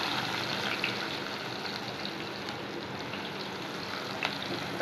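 Sliced onions sizzling in hot oil in a kadai, just added to a cumin and asafoetida tadka: a steady hiss that eases slightly as the oil settles.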